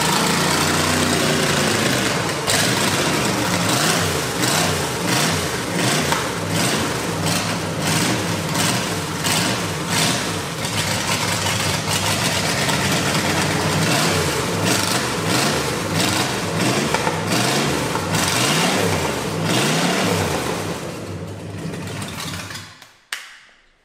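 MerCruiser marine 302 (5.0 L Ford small-block) V8 running on a test stand, revved up and down again and again; it sounds mean. Near the end it is shut off and winds down to a stop.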